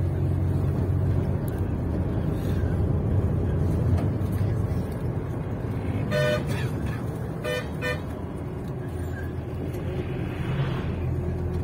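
Steady low rumble of a bus travelling on the road, heard from inside. A vehicle horn toots about six seconds in, then twice more in quick succession about a second and a half later.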